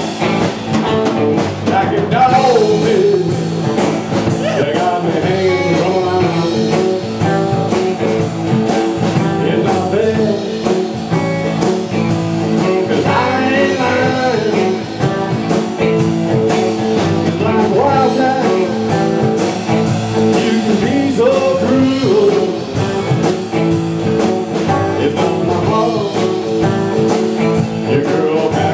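A live blues-rock band playing, with lead guitar bending notes over a steady beat.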